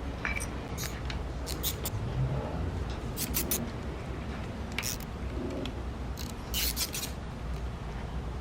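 Irregular sharp metallic clicks and scrapes of hand tools working on an engine during teardown, over a steady low background hum.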